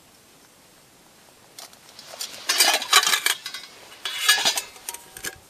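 Stainless steel camping pots clinking and scraping against each other and the stove as a small pot is lifted off a gas canister stove and set down among the cookware. The clatter starts about a second and a half in, is busiest around three seconds, and comes again briefly near the end.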